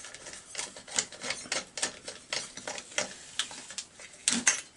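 Hex-bit screwdriver unscrewing a bolt deep inside a chainsaw's housing: a run of small, irregular metallic clicks and scrapes, with a couple of louder clicks near the end.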